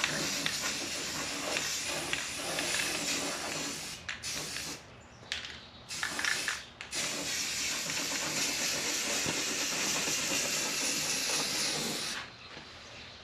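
Spray paint of rust preventative hissing in long bursts, with short breaks about four, five and seven seconds in and a longer pause near the end.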